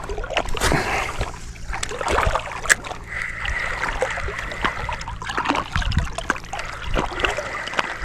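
Water splashing and lapping around a small pontoon boat, with scattered small knocks and clicks.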